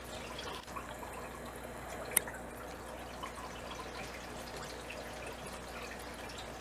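Aquarium water trickling and dripping steadily, with small ticks throughout. One sharp click about two seconds in.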